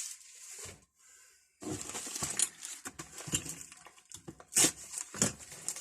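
Loose metal spanners clinking and clattering as they are handled and set down, a run of short knocks with a brief gap about a second in and two louder knocks near the end.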